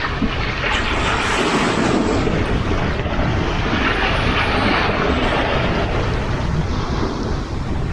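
Sea waves washing in, with wind buffeting the microphone. The wash swells to a louder hiss for a few seconds in the middle.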